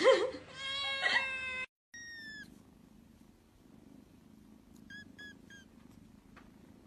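A cat meowing in long, drawn-out calls that stop abruptly about a second and a half in. Then a kitten gives one high falling mew, and about five seconds in, three quick short mews.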